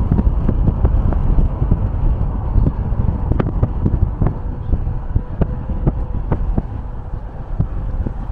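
Car driving at highway speed: a steady low rumble of road and wind noise with a faint steady hum, and scattered light ticks at irregular intervals.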